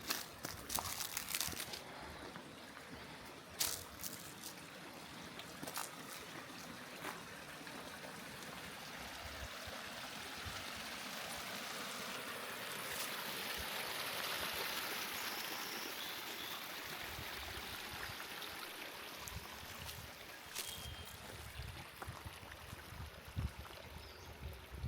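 Water running in a stream, a steady rushing that grows louder toward the middle and eases again, with a few short sharp clicks.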